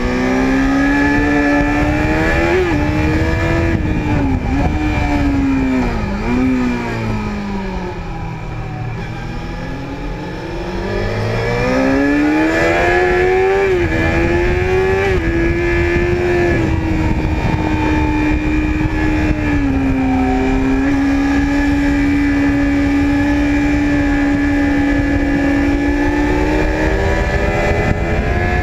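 Sport motorcycle engine heard from a camera on the bike, its revs rising and falling through the bends. It eases off to a lower, quieter note for a few seconds about a third of the way in, climbs back up, then holds a steady high pitch over the last third.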